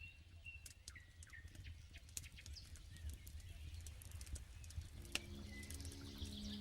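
Campfire crackling with scattered sharp pops, a few short bird chirps and a low rumble underneath. About five seconds in, a steady musical tone starts.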